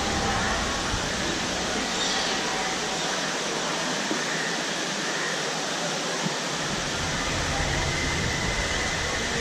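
Steady rushing of water from a landscaped waterfall and rocky stream.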